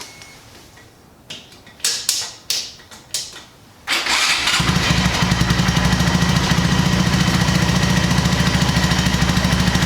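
A few sharp clicks and knocks, then about four seconds in a Honda Monkey's single-cylinder engine is started through its stock factory exhaust and settles straight into a steady, evenly pulsing idle.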